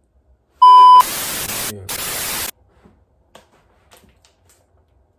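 Sound-effect beep, a loud steady tone under half a second long, cut straight into about a second and a half of loud static hiss with a brief break partway through. It is an edited-in transition effect.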